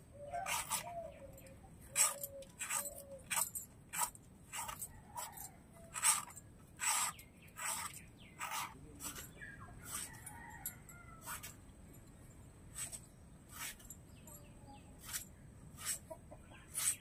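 Small knife scraping the ridges and skin off a ridge gourd: short rasping strokes, about two a second, fainter in the second half.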